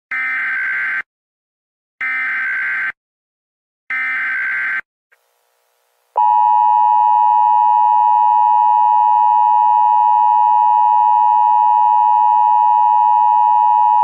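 Emergency Alert System SAME header: three one-second bursts of screechy digital data, about two seconds apart, encoding a Child Abduction Emergency (Amber Alert). Then NOAA Weather Radio's single-pitch warning alarm tone comes in about six seconds in and holds steady and loud for about eight seconds.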